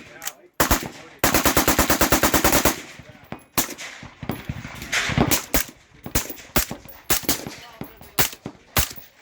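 Gunfire: a single shot, then a rapid burst of about twenty shots over a second and a half, followed by scattered single shots of varying loudness from other guns.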